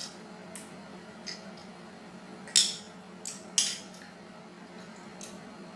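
Metal spoon clinking and scraping against a plate of food as someone eats. There are a few light clicks, and two sharper clinks about a second apart midway.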